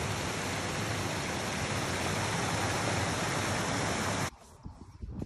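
Water pouring over a small weir in a stream, a steady rushing hiss of falling water. It cuts off suddenly about four seconds in.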